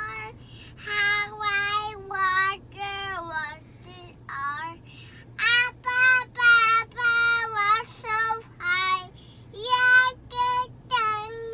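A toddler girl singing in a high voice, a string of short sung phrases with brief pauses between them.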